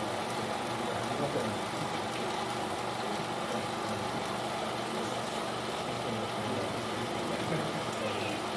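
16mm film projector running, a steady mechanical whir.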